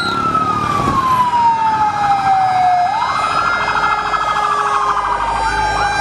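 Several fire engine sirens wailing together. The loudest climbs quickly and then falls slowly over about three seconds, twice, and other sirens overlap it with fainter wails and a fast warble.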